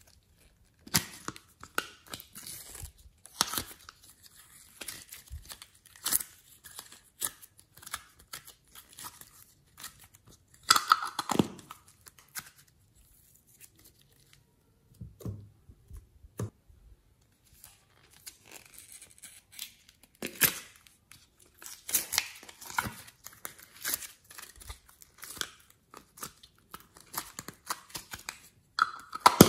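Soft modelling clay being pulled out of a thin clear plastic mould and stretched by hand: irregular crackling and clicking of the plastic and sticky tearing of the clay, with a quieter spell in the middle.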